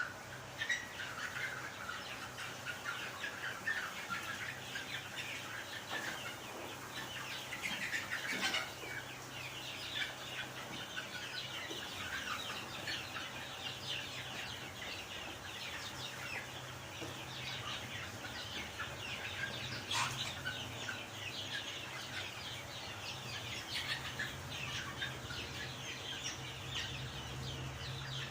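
A flock of young chickens cheeping and clucking continuously while they feed on rice, many short high calls overlapping, over a steady low hum.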